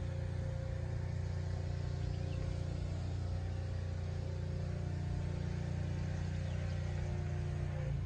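New Holland 555E backhoe loader's diesel engine idling steadily.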